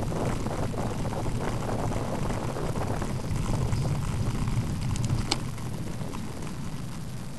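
Wind buffeting the microphone of a bicycle-mounted camera while riding, a steady low rumble with one sharp click a little after five seconds in.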